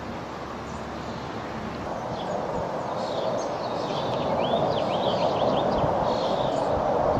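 Jet noise from a US Navy Blue Angels F/A-18 Hornet, a rushing sound that grows steadily louder as the jet approaches. Small birds chirp a quick run of short calls about three to five seconds in.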